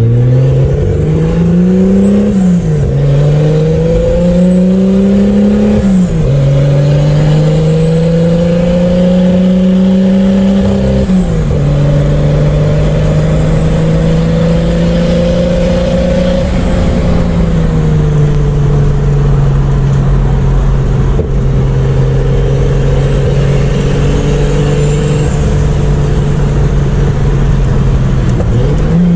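Turbocharged Chevrolet Opala six-cylinder engine accelerating hard through the gears. The engine note climbs and drops back at three quick gear changes, then holds a long pull before easing off to a steady cruise and picking up again near the end. A faint high whistle rises alongside each gear.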